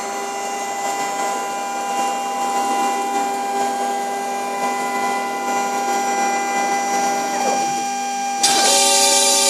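Homemade CNC router running: its spindle and stepper motors give a steady whine of several held tones as the spindle moves down toward the board. About a second before the end, a sudden, much louder rushing noise sets in.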